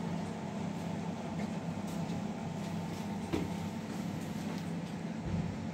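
Steady low hum of refrigerated display cabinets running, with a faint click about three seconds in.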